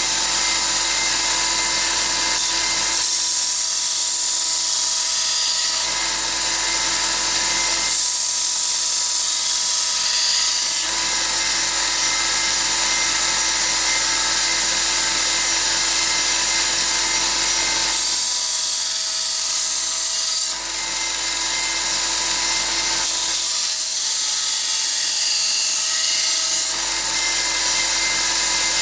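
Electric knife sharpener running steadily while a knife blade is ground on it in passes. The grinding hiss changes every few seconds as the blade is pressed on and drawn off.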